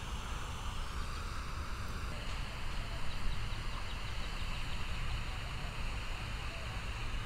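Steady outdoor background noise: a low rumble with a higher hiss, and faint high ticks repeating for a couple of seconds in the middle.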